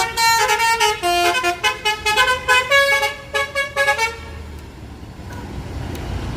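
Bus telolet horn playing a rapid tune of short notes at changing pitches, stopping about four seconds in. After that only the bus's engine is heard, running low.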